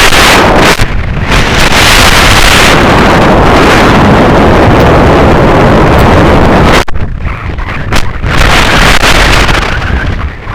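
Strong wind buffeting the microphone in flight: a loud, rough rush of noise that drops off sharply about seven seconds in, then gusts back up unevenly.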